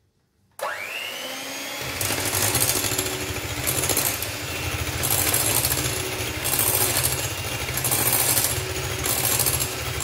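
Black+Decker electric hand mixer switched on about half a second in, its motor whine rising as it comes up to speed. Its beaters then churn a thin egg mixture in a bowl, the noise swelling and easing every second or so.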